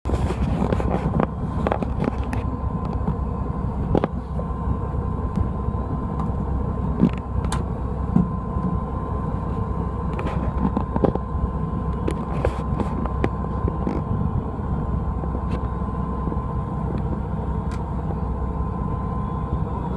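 Fishing boat's engine running steadily, a low rumble with a constant hum, under wind and water noise. Scattered light clicks and knocks sound throughout.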